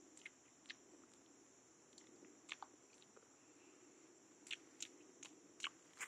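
Faint chewing of a bite of raw wild mushroom: scattered soft crunches and mouth clicks, coming closer together in the last couple of seconds.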